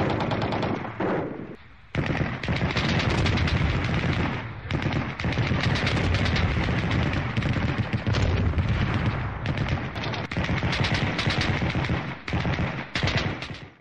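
Sustained automatic gunfire: long, rapid bursts with a few brief breaks between them.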